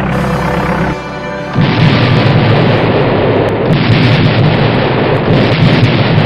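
Steady drone of four-engine bomber aircraft, then about a second and a half in a sudden loud, continuous rumble of bombs exploding, which swells again twice.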